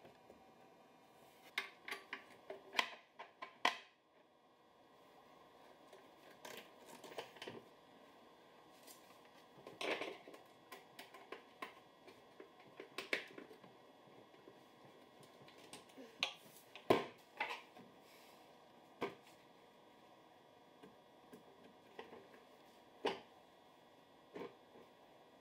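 Scattered light clicks and knocks of a two-tier lazy Susan's wooden shelves and chrome centre pole being handled and fitted into a corner cabinet.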